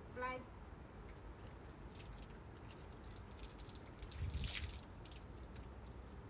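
Water poured from a jug over a Labrador's wet coat, splashing and dripping onto the paving stones, with the biggest pour about four seconds in. A brief pitched vocal sound right at the start.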